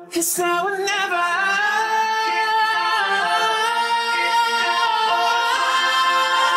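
Isolated pop-rock vocals with no instruments: several layered singing voices hold long sustained notes in harmony. The pitch glides and shifts to a new chord a few times.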